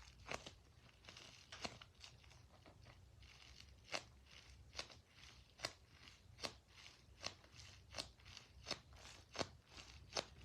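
A squishy toy being squeezed over and over, giving short crisp crunching clicks. They come irregularly at first, then settle into a steady rhythm of about one click every 0.8 seconds.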